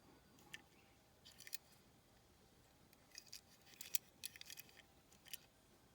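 Faint, scattered clicks and short crinkles from plastic toy packaging being handled, in groups about half a second in, around one and a half seconds, and between three and five and a half seconds.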